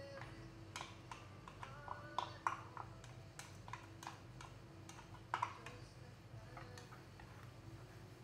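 Utensil clinking and tapping against a ceramic bowl and frying pan as chopped onion and garlic are scraped into the pan: a series of sharp, irregular clicks, the loudest a little over two seconds in and again about five and a half seconds in.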